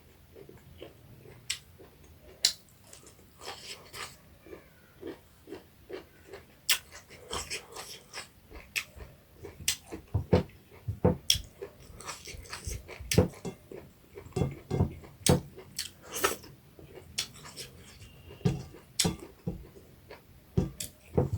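Close-miked mouth sounds of someone eating: chewing with frequent wet smacks and clicks, coming irregularly and growing busier about halfway through.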